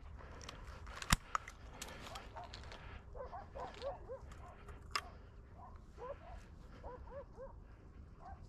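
Dogs giving faint, repeated short yelps, with two sharp clicks, one about a second in and one about five seconds in.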